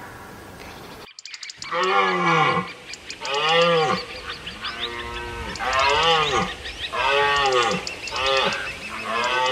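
An animal calling over and over: about seven short calls, each rising and falling in pitch, roughly one a second, with faint high chirps behind them.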